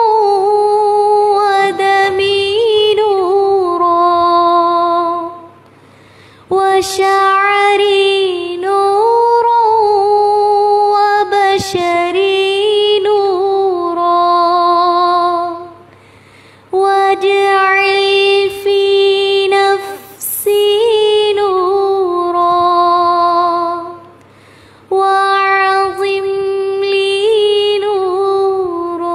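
A high solo voice chanting a du'a in long, ornamented melodic phrases, with short pauses for breath between them, four phrases in all.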